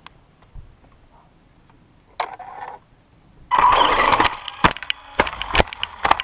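Radio-controlled car running in two short bursts, the second louder, followed by a rapid series of sharp knocks and clatter.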